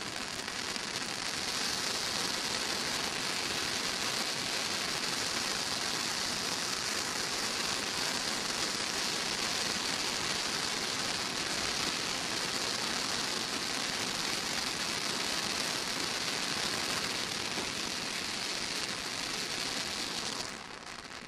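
Brothers Pyrotechnics Krazy Klock display fountain, several gerb tubes spraying sparks with a steady, even hiss that dies away near the end as the fountain burns out.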